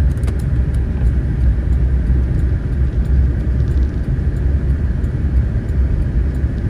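Steady low rumble of a vehicle driving, heard from inside the cab: engine and road noise.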